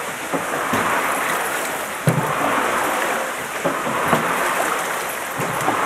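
Steady rushing and splashing of water driving an overshot mill wheel, with a few sharp knocks from the turning mill machinery.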